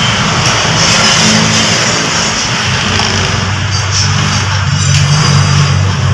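A vehicle engine running steadily, its low hum shifting slightly in pitch about four and a half seconds in, over a constant hiss.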